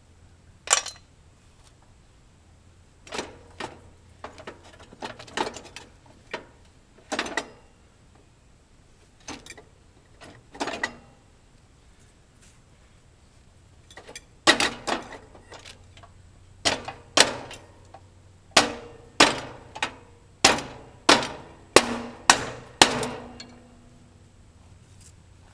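Hammer blows on metal, each ringing briefly. A few scattered strikes come first, then a steady run of about a dozen blows, roughly two a second.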